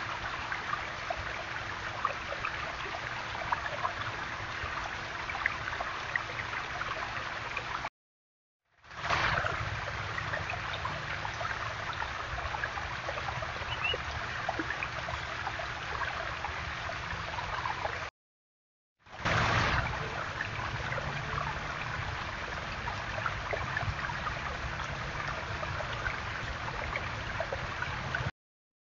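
Small stone garden waterfall, water trickling and splashing steadily over stacked rocks, with a faint steady hum underneath. The sound breaks off twice for about a second, in three separate recordings.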